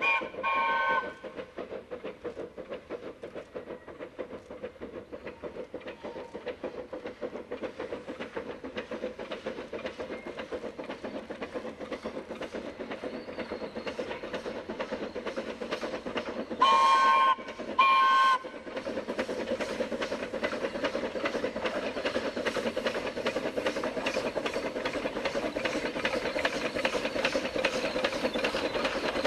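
C2 class 0-8-0 narrow-gauge steam locomotive working a train: a steady, quick beat of exhaust chuffs that grows louder as it nears. Two short blasts on its steam whistle sound at the start and two more a little past halfway.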